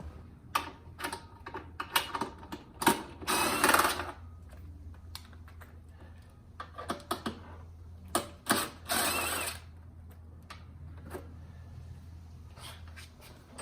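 Ratchet wrench clicking as the two bolts holding the old recoil starter on a Tecumseh engine are undone, in two runs of rapid ratcheting about five seconds apart, with scattered metal clicks and knocks in between.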